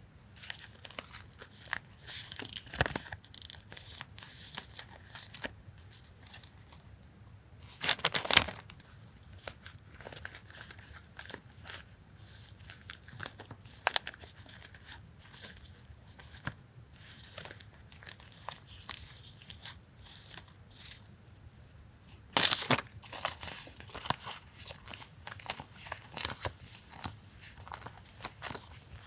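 Paper and plastic stationery packaging being handled: crinkling, rustling and light taps, with two louder stretches of rustling about 8 and 22 seconds in.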